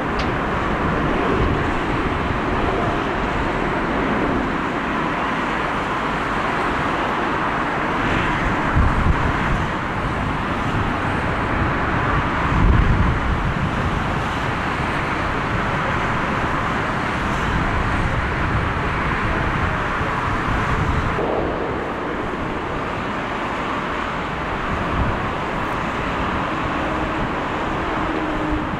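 Jet airliner engines at takeoff thrust: a Boeing 777 and then a four-engined Boeing 747 rolling and climbing out, a steady broad roar with low gusts of wind on the microphone. The sound changes about two-thirds of the way through, where the shot changes from one aircraft to the other.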